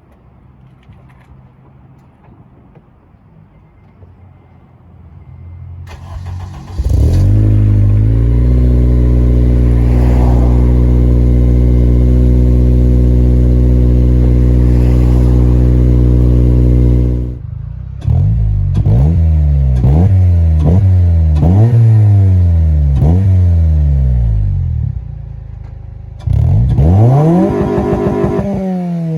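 2007 Honda Civic Si's 2.0-litre K20 four-cylinder through an Invidia Q300 catback exhaust: about six seconds in it cranks and catches on a cold start, settling into a loud, steady fast idle. After a break it is blipped again and again, each rev rising and falling back, with a second run of revs near the end.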